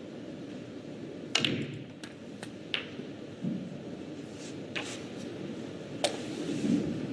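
Snooker balls clicking during a break: about five sharp clicks of the tip on the cue ball and ball striking ball, the loudest about a second and a half in, over the steady low murmur of a hushed arena.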